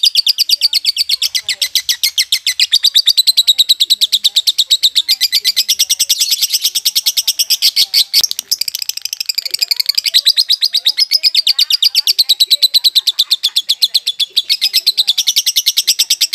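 Violet masked lovebird, still an untrained young bird, chattering in the rapid-fire 'konslet' style: an unbroken string of short, high chirps at about ten a second, with a brief break a little past the middle.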